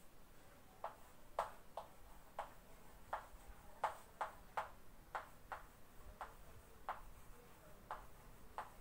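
Chalk writing on a blackboard: a string of short, irregular taps and strokes as letters are written.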